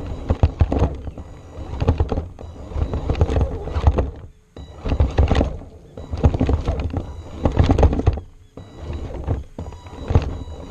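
Axial AX10 Deadbolt RC rock crawler heard from its front-mounted onboard camera: irregular knocks, thumps and rattles as it crawls over rough ground, in bursts of a second or two with short pauses. A faint steady electric-motor whine runs underneath.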